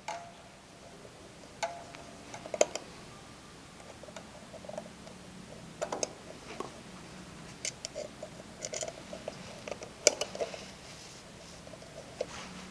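Scattered light clicks, taps and clinks of a junction-box cover being handled and fitted back in place, over a faint steady hum.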